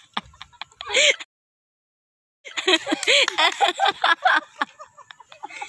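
Women's voices talking and laughing excitedly, broken by about a second of dead silence about a second in.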